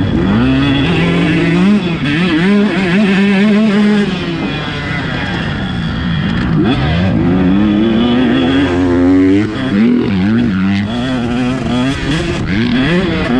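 KTM 150 SX two-stroke single-cylinder motocross engine being ridden hard, its pitch climbing and dropping again and again with throttle and gear changes.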